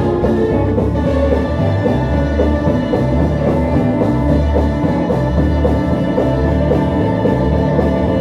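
Live gospel band playing an instrumental passage, with a bass line moving in held notes under drums and other instruments.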